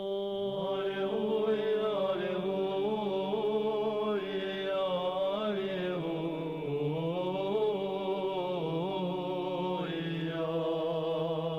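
Men's monastery choir singing Orthodox chant a cappella in the eighth tone: a slow, drawn-out melody moving over a steady held drone note, with no pause.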